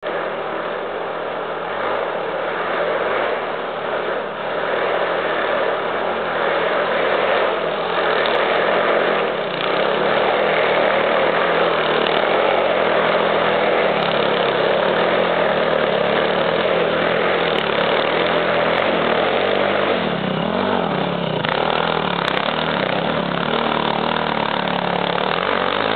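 Off-road dirt bike engine running hard as it climbs a steep, leaf-covered forest slope, getting louder as the bike approaches and revving up and down in the later part.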